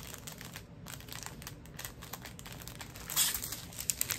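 Plastic packaging crinkling and rustling as it is handled, in many quick crackles, with a louder rustle about three seconds in.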